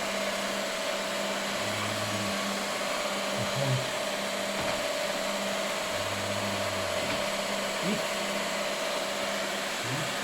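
Huron MU 5 milling machine running under power, with a steady motor whir and hum. A deeper hum comes in twice, about a second each time, near two seconds in and again around six seconds.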